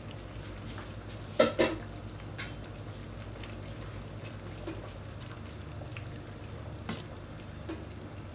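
Curry simmering in a metal pot while water spinach is stirred into it, a steady bubbling hiss. A utensil clinks sharply against the pot about a second and a half in, and again more lightly near the seventh second.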